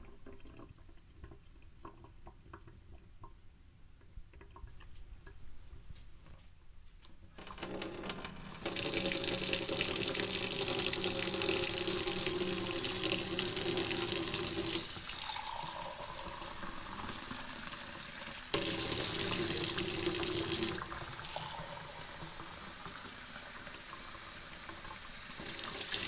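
Sink tap running water into the basin: a light trickle for the first several seconds, then a full stream from about seven seconds in that eases off and surges back a couple of times.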